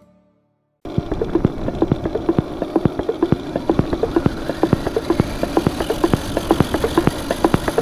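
Onboard sound of an electric RC monster truck driving over a rough dirt track: rapid, irregular knocks and rattles from the body and suspension over a steady drivetrain hum, heard through the camera mounted on the truck. It starts about a second in, after a brief silence.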